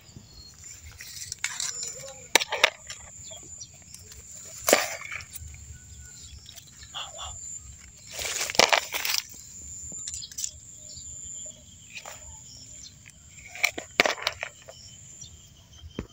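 Dry leaf litter and twigs rustling and snapping as a hand rummages through them, with scattered sharp clicks and a longer burst of rustling about halfway through. A steady high thin tone sounds behind it.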